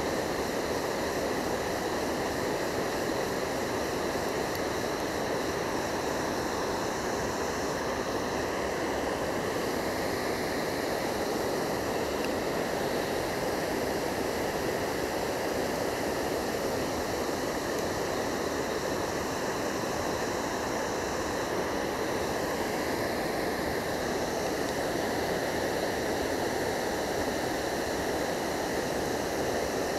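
Water spilling over a low river weir, a steady rush of falling water.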